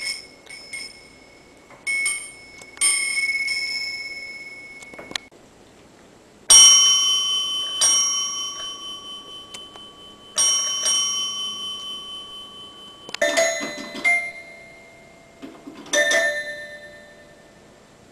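A small brass bell on a chain rung by a cat, several quick rings. Then three single strikes on a tabletop bell, each ringing out and fading over a couple of seconds. Near the end come a few shorter chimes at a different pitch.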